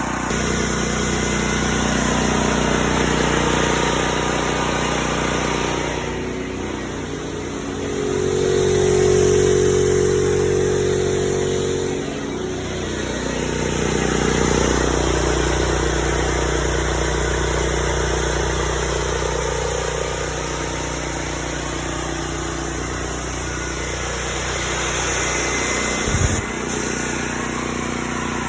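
Generac GP8000e portable generator's single-cylinder engine running steadily on its first run; it has a sound but is not loud. The level swells and fades slowly, and there is one short knock near the end.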